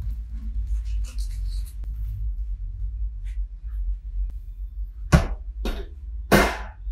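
Parchment paper rustling as it is laid over a cake in a metal baking pan, then three short, sharp clatters near the end as a wire cooling rack is set down on the pan, the last the loudest, over background music.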